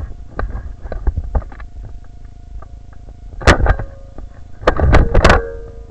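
Clicks and knocks from a Nerf blaster being handled with a camera mounted on it. Two loud, harsh bursts come about three and a half and five seconds in.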